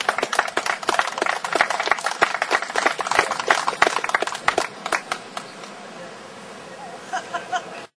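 A small crowd clapping, the claps thinning out after about five seconds; the sound cuts off abruptly just before the end.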